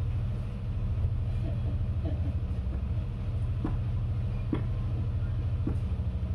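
Kittens purring: a steady, low, fast-pulsing rumble, with three soft clicks in the middle.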